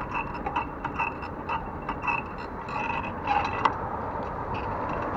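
A squeaking saddle on a ride over city pavement: a short high squeak repeats two or three times a second over the rolling and rattling of the ride for the first three seconds, then there are only scattered clicks.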